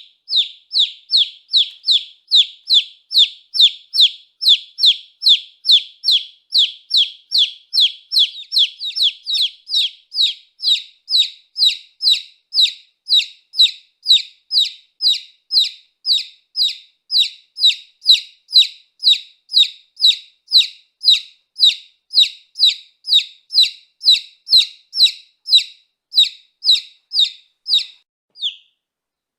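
Baby chick peeping: a steady run of short, high peeps, each falling in pitch, about two to three a second, with a brief pause near the end.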